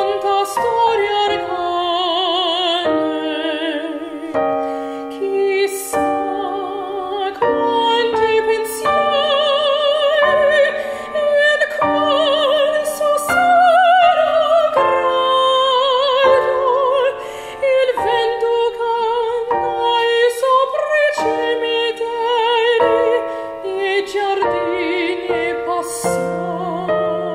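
Classical soprano singing an Italian art song with a wide vibrato on long held notes. She is accompanied by chords on a Yamaha digital piano.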